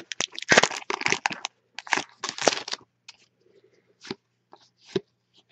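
A trading-card pack wrapper is torn open and crinkled for about three seconds. A few short soft clicks follow as the cards inside are handled.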